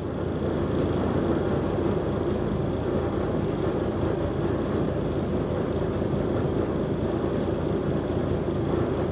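Mercedes-Benz O345G articulated city bus's diesel engine idling steadily while the bus stands still.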